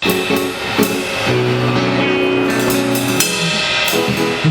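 Drum kit played over a backing track, with cymbal and hi-hat strikes over sustained low pitched notes.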